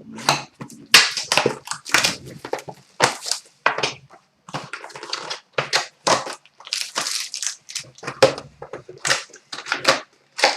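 Plastic wrapping on a pack of trading cards being torn open and crinkled by hand, in quick irregular rustles.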